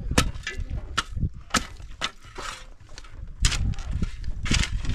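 A series of sharp knocks, about one a second, typical of blows struck during construction work. A low rumble comes in about halfway through.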